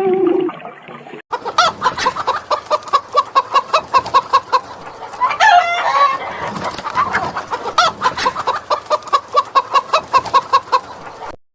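A chicken clucking rapidly, several short notes a second, with a louder sweeping squawk about five seconds in. It follows a lower animal call that cuts off about a second in.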